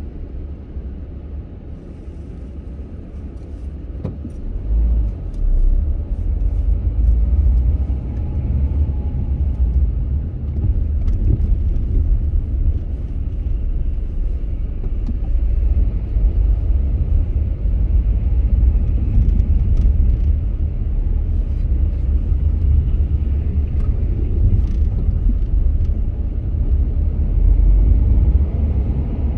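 A moving car's engine and road noise: a steady low rumble that grows louder about five seconds in and then holds.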